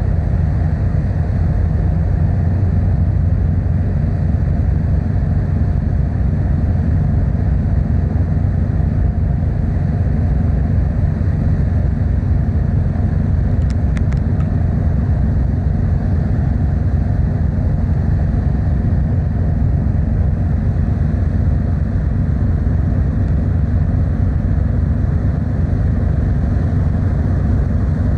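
Car ferry running steadily under way: an even, low rumble of engines and hull.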